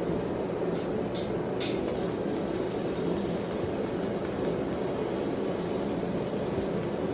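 Welding arc crackling and hissing over a steady noisy hum, the crackle starting about a second and a half in.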